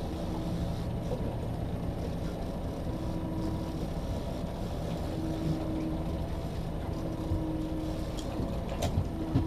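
Boat's outboard motor running steadily, mixed with water wash and wind on the hull. A couple of sharp knocks come near the end.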